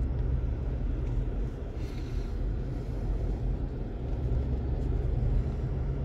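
Car driving along a road: a steady low rumble of engine and road noise.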